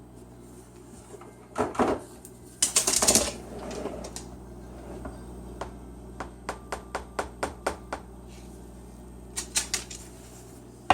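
A cockatoo's beak tapping and knocking on hard plastic: scattered clicks, a louder rattling knock about a third of the way in, and a quick run of about ten sharp taps, roughly six a second, a little past halfway.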